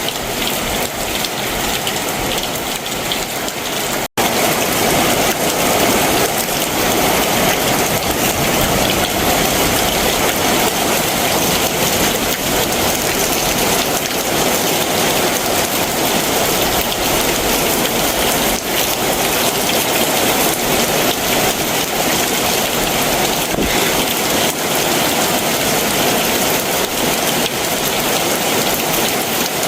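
Heavy summer monsoon downpour falling steadily. The sound cuts out for an instant about four seconds in, then carries on slightly louder.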